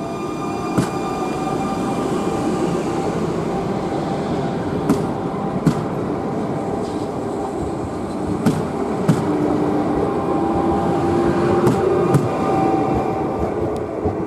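Trenitalia Minuetto multiple unit pulling out past the platform: steady running noise with a faint motor whine, and its wheels clicking over a rail joint in pairs, one click per bogie. The pairs come slightly closer together as the train gathers speed.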